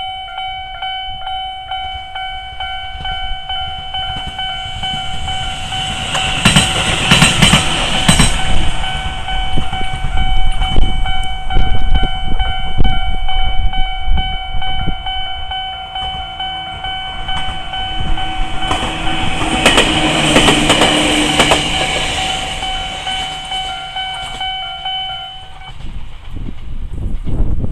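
Japanese railway level-crossing alarm ringing while a Jōmō Electric Railway train and a Tobu Kiryu Line train pass each other. The first train goes by about six seconds in, its wheels clattering over the rail joints, and the second passes around twenty seconds in. The alarm stops a couple of seconds before the end.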